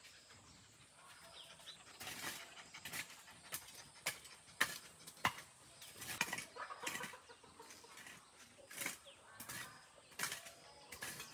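Chickens clucking softly, with scattered rustling and sharp knocks and taps in between.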